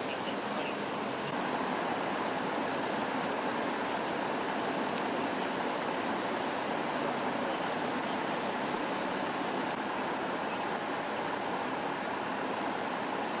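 Floodwater from a burst pipe rushing and churning across the street in a steady wash of noise, getting slightly louder about a second in.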